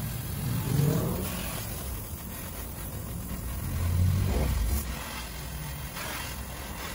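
Road traffic going by: vehicle engines swell and fade about a second in and again, louder, around four seconds in, over a faint steady hiss.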